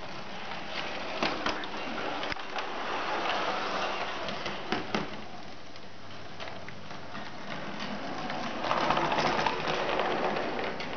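A 1:24-scale model tram running along its layout track, wheels rattling on the rails with scattered clicks. It gets louder for a couple of seconds near the end.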